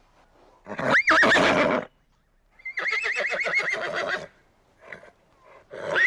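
Horse neighing three times: a short call about a second in (the loudest), a longer whinny with a fast quavering pitch in the middle, and another neigh starting near the end.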